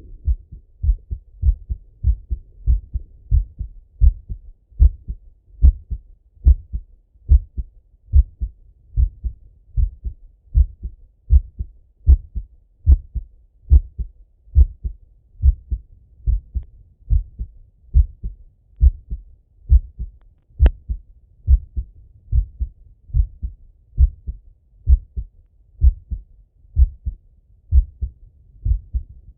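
A man's heartbeat heard through a Littmann stethoscope: a slow, steady lub-dub of low thumps, with one faint click about two-thirds of the way through.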